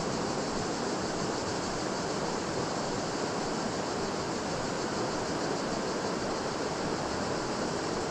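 Steady rush of a river's running water over rapids.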